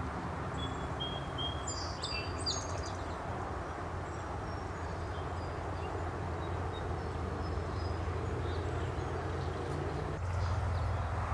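Steady hum of distant road traffic, with small birds chirping a few short notes, mostly in the first few seconds.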